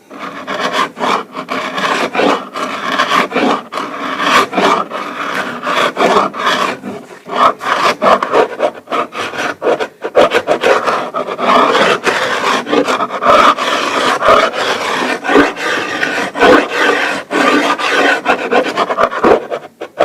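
Hand scrubbing of an oak floor with an abrasive pad: rapid, scratchy back-and-forth rubbing strokes with a few short pauses, working dried paint out of the wood.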